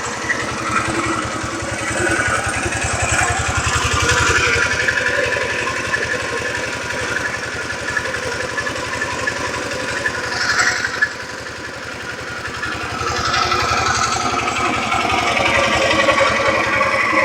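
A small engine running steadily; it drops off about eleven seconds in and picks up again a couple of seconds later.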